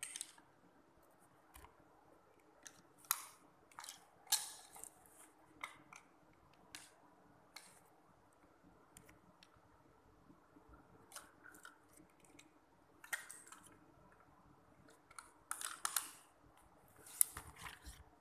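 Plastic Lego bricks being handled and pressed together, giving irregular clicks and short scrapes.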